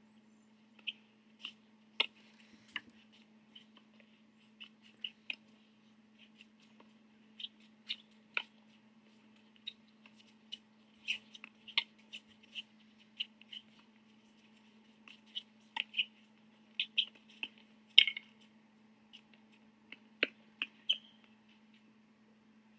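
Tennis shoes squeaking on a hard court, short high squeaks coming irregularly through the rally, mixed with a few sharp knocks of racquet on ball, the loudest near the end. A steady low hum runs underneath.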